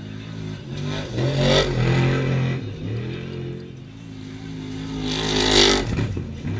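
Off-road race vehicle engines revving hard as they pass at speed, twice: once about a second and a half in and louder near the end. Each pass rises to a peak, then the engine note drops in pitch as it pulls away.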